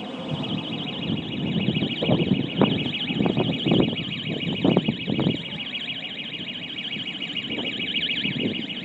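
An electronic alarm sounding, a steady high-pitched tone that pulses quickly and evenly. Bursts of low rumbling noise come and go between about two and five seconds in.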